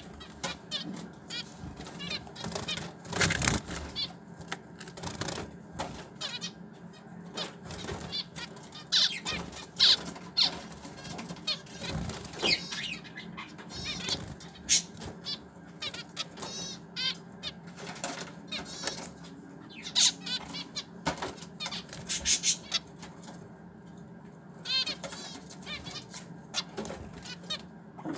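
Caged finches: short high chirps scattered throughout, with warbled trills near the end and a few sudden fluttering strokes of wing flaps.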